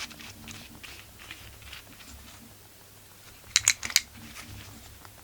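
Small chainsaw engine parts being handled during assembly: faint shuffling, then a quick cluster of four or five sharp clicks a little past halfway.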